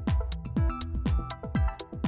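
Electronic dance music with a steady kick drum about twice a second, crisp high percussion and synth notes.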